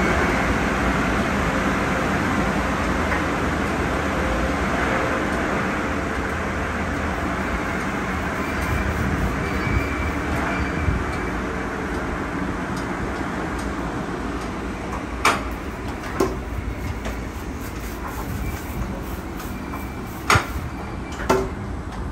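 Car wash tunnel conveyor and equipment running with a steady rushing noise that eases slightly. A few sharp clanks come in the last seven seconds.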